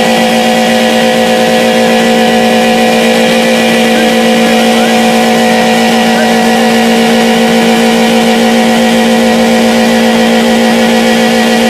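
Car engine held at full revs with the throttle pinned, a loud, steady, unchanging note, as it is run flat out on purpose to blow it up.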